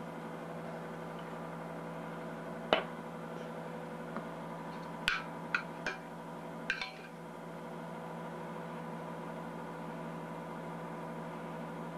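A few light clinks of a spoon and spatula against a glass dessert stand: one about three seconds in, then a small cluster a couple of seconds later. Under them runs a steady electrical hum.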